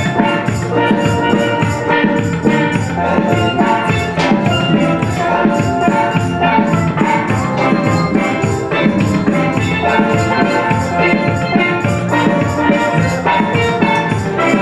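Music with a steady, regular beat and percussion, playing throughout.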